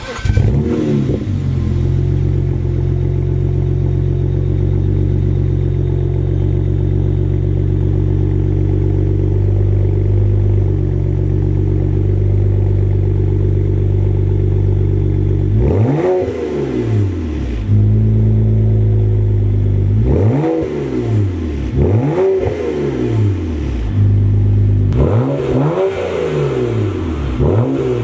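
BMW 335i's turbocharged straight-six heard at the tailpipe through a muffler-delete exhaust, with the mufflers removed and everything else stock. It idles steadily for about fifteen seconds, then is blipped repeatedly, the revs rising and falling in quick groups of two or three.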